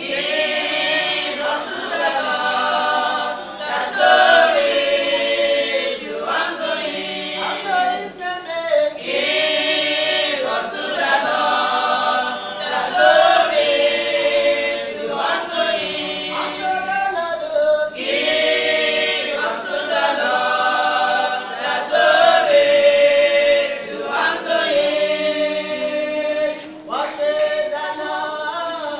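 Church choir singing.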